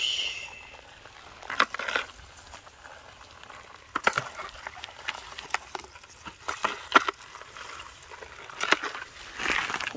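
Irregular rustling and crackling in leaf litter and undergrowth, with a few sharp snaps scattered through it.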